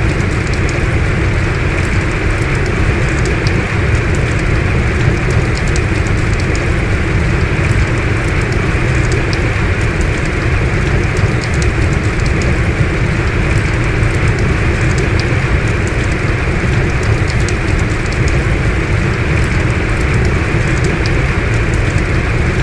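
Heavy rain falling steadily, a dense even hiss with scattered sharp drop ticks.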